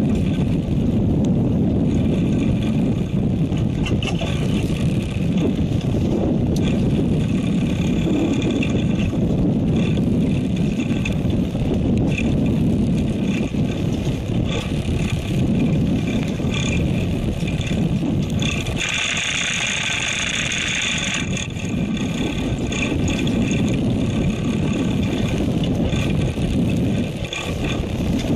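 Steady rumble of a fishing boat's engine, with wind and sea noise. About two-thirds of the way through, a higher whirring sound comes in for about two seconds.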